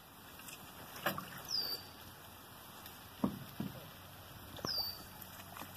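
Water splashing and sloshing against a metal boat hull as an alligator moves alongside, with a few sharp knocks. Two short, high chirps falling in pitch.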